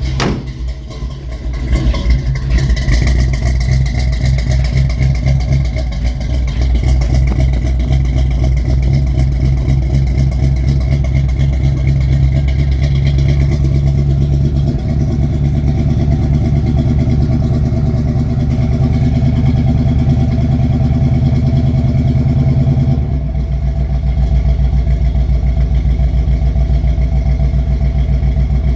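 1971 Chevy C10's 350 small-block V8 on a cold start after three months of sitting: it catches about two seconds in and runs at a steady, loud idle, not yet firing on all cylinders. The idle drops a step about 23 seconds in.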